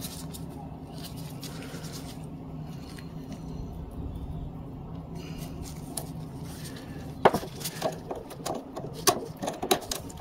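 Snap-ring pliers and a small steel retaining ring clicking as the ring is worked onto a planer's feed-roller sprocket shaft: a series of sharp metallic clicks in the last three seconds, the first the loudest, over a faint steady low hum.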